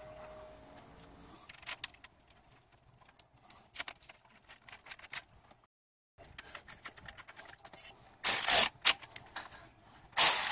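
Light clicks and taps of metal hardware being handled, then two short bursts about two seconds apart near the end from a Milwaukee cordless ratchet driving a radiator mounting bolt.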